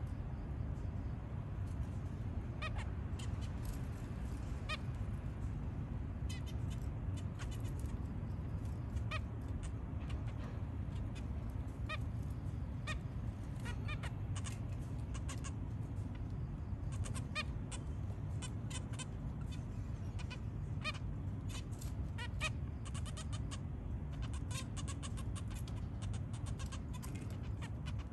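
A family of zebra finches, adults and young, calling with short nasal beeps. The calls are scattered at first and come thick and fast in the second half, over a steady low hum.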